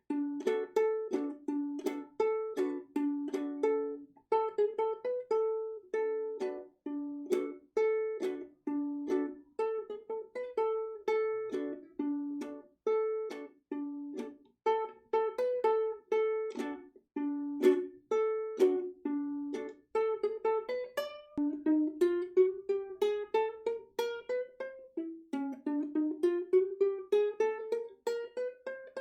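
Makala MK-SD soprano ukulele played with single plucked notes: a repeating figure that moves back and forth between two pitches. In the last third it climbs in two rising runs of notes up the neck.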